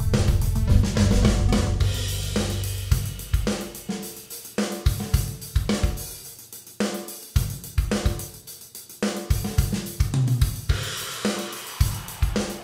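Background music: a drum kit playing a steady beat with cymbals and hi-hat, over bass notes that fall away after about three seconds.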